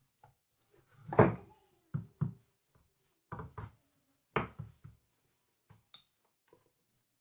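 A series of sharp knocks and clatters of hard objects handled and set down on a workbench, in irregular pairs, the loudest a little over a second in, fading to a few faint ticks near the end.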